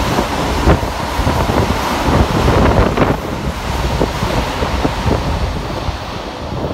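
Keikyu 2100-series electric train passing through the station at speed without stopping: a loud rush of air buffeting the microphone, with repeated sharp clacks of the wheels running over the rails.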